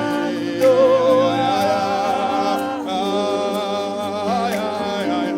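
Church worship music: sustained chords with a voice singing a slow, wavering wordless melody.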